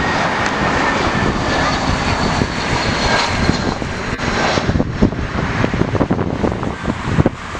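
Jet airliner's engines passing close by: a loud, wide rush with a faint high whine in the first few seconds, and wind buffeting the microphone.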